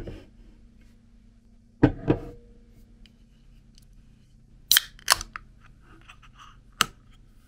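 Aluminium beer can handled with a few sharp knocks, then its ring-pull snapped open about five seconds in: two sharp cracks half a second apart and a brief fizz, followed by one more click near the end.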